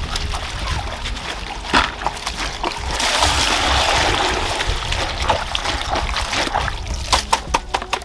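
Hand washing fresh jute leaves in a plastic basin of water: leaves squished and stirred, water sloshing and splashing, with a longer spell of steady splashing about three seconds in and a quick run of small splashes near the end.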